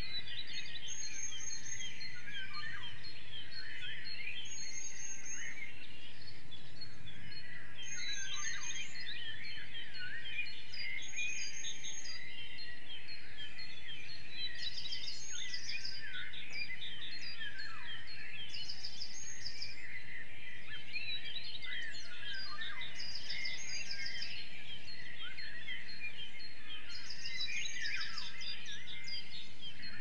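Dense chorus of many songbirds singing and calling together, with one bird repeating the same short, high-pitched song phrase about every four seconds.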